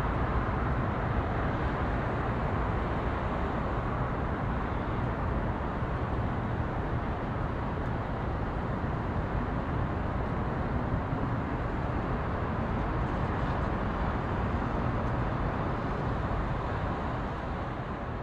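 Steady low city rumble: a circling police helicopter heard against ongoing urban traffic.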